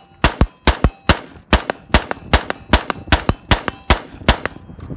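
Desert Tech MDR bullpup rifle fired semi-automatically in a fast, steady string: about a dozen sharp shots, roughly two and a half a second.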